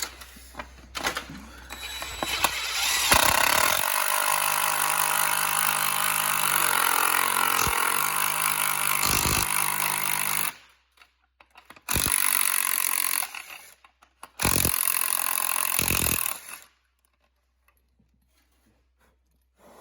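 Electric hand drill drilling through metal: one long run whose motor pitch sags for a moment under load, then two shorter bursts, with some handling clicks before it starts.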